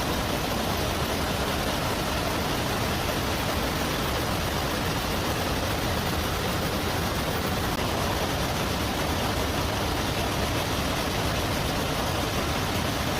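Machinery running with a steady, even noise and no clear rhythm or separate strikes.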